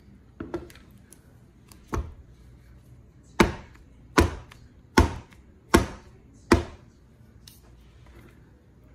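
Wooden soap loaf mold with a silicone liner, full of soap batter, knocked down on a table: two softer knocks, then five loud thumps a little under a second apart, tapping the mold to settle the batter and release air bubbles.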